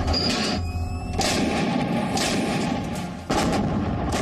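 Artillery guns firing: two heavy booms, about a second in and again after about three seconds, each rumbling away, over background music.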